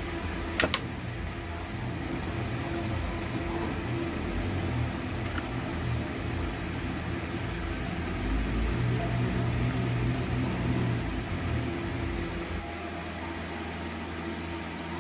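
An electrical switch snapping, two sharp clicks in quick succession about half a second in, then a steady low hum.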